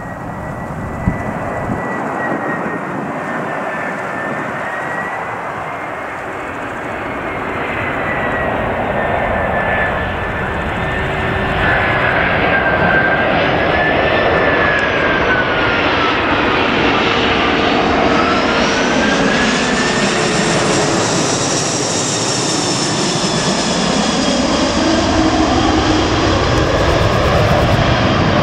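Four CFM56 turbofan engines of an Airbus A340-300 on final approach for landing: a steady jet roar that grows louder as the airliner passes low overhead, with an engine whine whose pitch wavers, dips midway and rises again.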